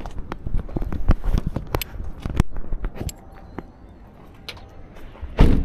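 Footsteps crunching through dry undergrowth: irregular snaps and crackles of twigs and brush, with a louder brushing burst near the end.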